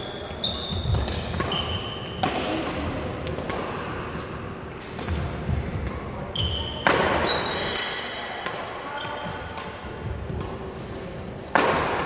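Badminton doubles rally: rackets hitting the shuttlecock in several sharp hits, the strongest about two, seven and eleven and a half seconds in, with shoes squeaking in short high chirps and feet thudding on the wooden court floor, ringing in a large hall.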